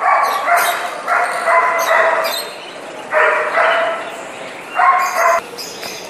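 An animal calling: a run of short, loud, pitched calls, several close together in the first two and a half seconds, then two more about a second and a half apart.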